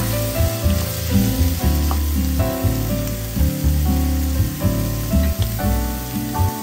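Background music with bass and chord notes changing about twice a second, over the sizzle of sliced funghi and shiitake mushrooms sautéing in butter in a pan.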